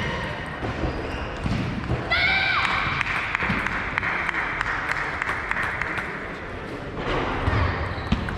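Table tennis balls being played: repeated sharp clicks of celluloid balls striking bats and tables, several rallies overlapping, echoing in a large hall. About two seconds in, a raised voice or shout rises over the clicks and trails off.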